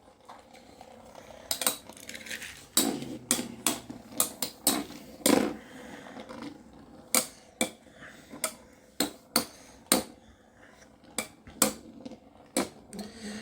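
Metal Fight Beyblade spinning tops clashing in a stadium: a run of irregular, sharp metallic clacks and clinks as the tops collide, with softer scraping between hits.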